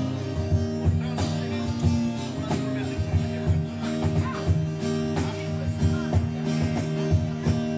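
Background music led by strummed guitar with a steady beat.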